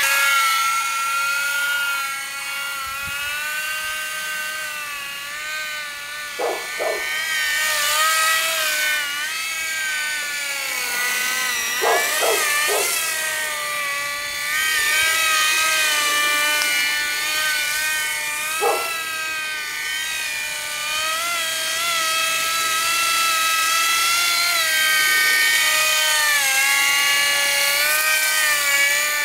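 Radio-controlled model helicopter (Graupner Koala converted to a single main rotor with fixed pitch and a tail rotor) in flight: a high motor and gear whine whose pitch rises and falls again and again as the rotor speed changes with throttle. A few brief sharp sounds stand out over it.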